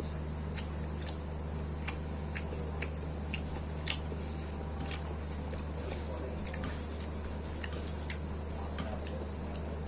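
A person eating, chewing with scattered sharp mouth clicks and smacks, two of them louder, about 4 and 8 seconds in, over a steady low hum.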